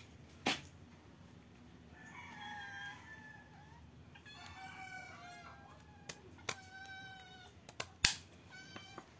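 Scissors snipping the spiny fins off rabbitfish (danggit), a few sharp clicks, the loudest about eight seconds in. Chickens call several times in between.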